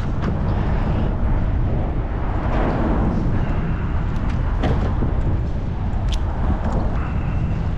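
Wind buffeting the action-camera microphone, a steady low rumble, with a few light clicks and taps from hands handling the crab bait and jig.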